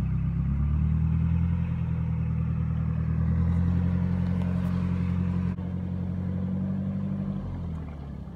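Narrowboat's diesel engine running with a steady low throb, its revs rising about half a second in and dropping back near the end.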